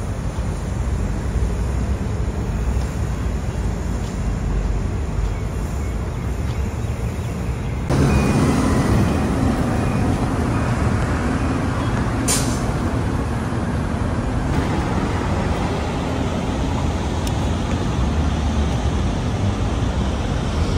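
Street traffic noise from passing vehicles, a steady rumble that gets louder about eight seconds in, with one brief sharp hiss a few seconds later.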